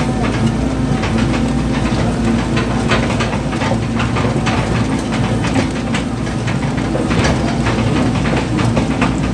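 Hydraulic excavator's diesel engine running steadily, heard from inside the cab, with frequent irregular clanks and rattles as the machine travels on its tracks carrying a load in the bucket.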